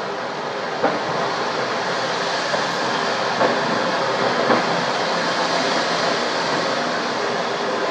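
Steady noise of a large petrol station fire burning, heard across a road, with a few sharp pops about a second in and again around three and a half and four and a half seconds.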